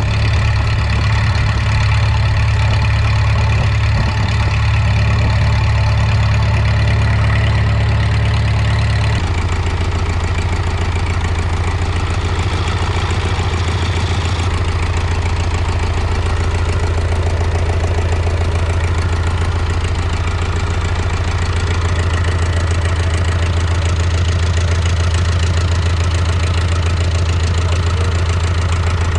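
David Brown 995 tractor's three-cylinder diesel engine running steadily. About nine seconds in, its speed drops to a lower, steady idle.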